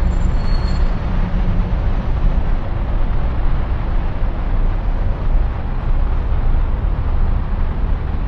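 Steady urban road traffic noise with a heavy low rumble and a constant hiss.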